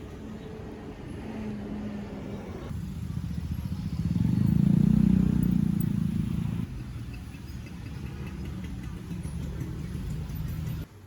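Low rumble of road traffic or a vehicle engine, changing abruptly twice and swelling loudest in the middle.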